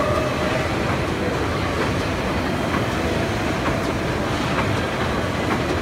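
Garbage-bag converting machine running steadily, feeding plastic film through its rollers and winding bags onto a roll, with faint clicks about once a second.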